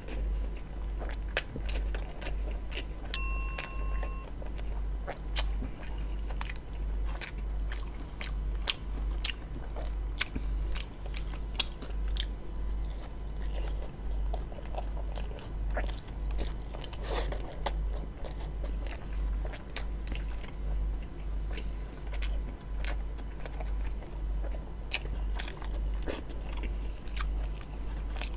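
Close-miked chewing and biting of a roti John with a minced-beef filling, with many small wet mouth clicks. About three seconds in, a sharp clink rings out briefly.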